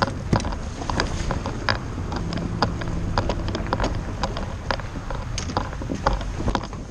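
Low road and wind rumble of a fishing boat being towed on its trailer, with frequent irregular knocks and clattering from the boat and trailer rattling over the road.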